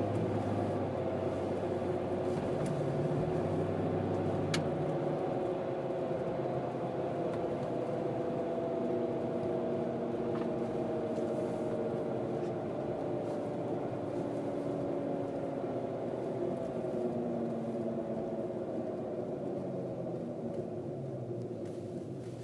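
Whining noise from a Mercedes-Benz W163 M-Class: several pitched tones over a steady vehicle rumble, slowly falling in pitch. A single sharp click about four and a half seconds in.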